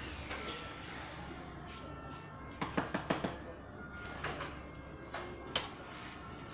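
Sharp metallic knocks and clanks while an exhaust pipe is fitted under a car: a quick run of about five knocks a little past halfway, then single knocks, over a steady low workshop hum.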